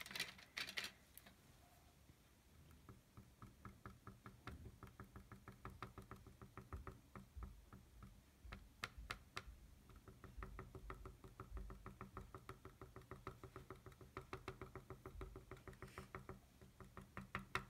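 Cotton swab (Q-tip) dabbing watercolour dots onto a canvas: a long, even run of soft taps, about four or five a second. It opens with a brief rub as the swab is wetted in the watercolour pan.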